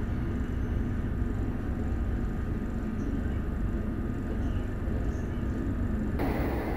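Steady rumble and rail noise of a moving passenger train, heard from inside the coach. The sound changes abruptly about six seconds in.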